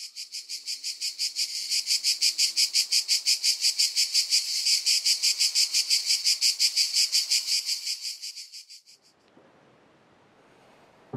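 High-pitched insect chirping in fast, even pulses, fading in, holding steady, and fading out about nine seconds in, leaving only a faint hiss.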